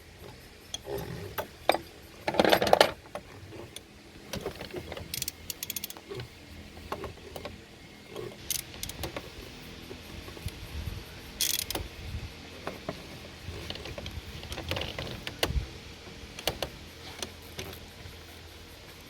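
Hand tools working on metal in an engine bay: scattered clicks and clinks, with a short run of quick ratchet clicks about five seconds in and a louder clatter near three seconds, while the oil pressure sensor is being loosened.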